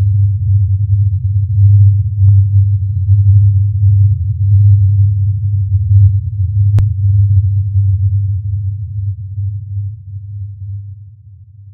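Low, steady droning hum with a slight pulsing, the recording offered as the "Taos Hum"; it fades out over the last few seconds. A single sharp click about seven seconds in.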